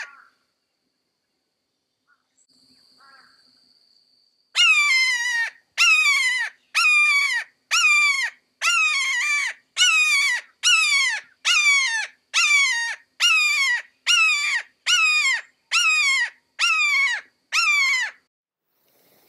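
Red-shouldered hawk giving its loud "kee-aah" call over and over, about sixteen calls at a little faster than one a second, each dropping in pitch. The calls begin after about four quiet seconds.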